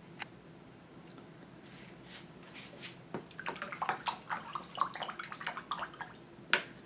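A paintbrush being worked wet: a scatter of small, irregular clicks and wet ticks beginning about halfway through, with one sharper tap near the end.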